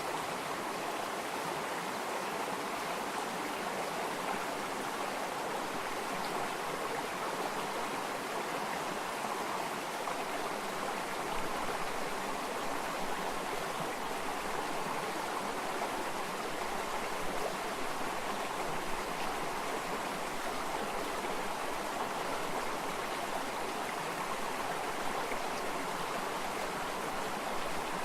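Flowing water running steadily, an even, unbroken rush with no pauses or splashes.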